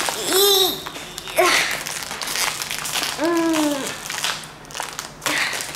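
Foil chip bag crinkling as it is pulled and twisted hard by hand, a sealed bag that won't tear open. A child's strained grunts of effort sound over it, about half a second in and again around three seconds in.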